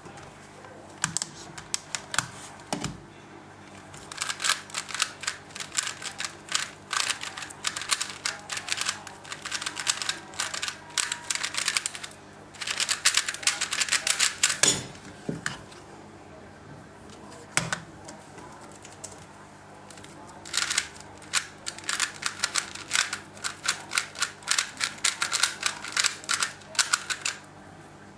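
A 3x3 speedcube being turned by hand: quick runs of plastic clicking as the layers snap round, in two long bursts with a pause between. A single sharp knock comes about halfway.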